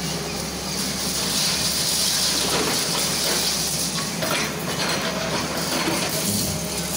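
Tata Hitachi hydraulic excavator running steadily while it tears into a brick and concrete building, with clattering and knocks of breaking and falling rubble.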